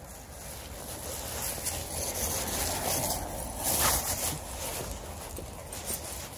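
Footsteps and a dog's paws rustling through dry fallen leaves, with a plastic bag crinkling close up about four seconds in.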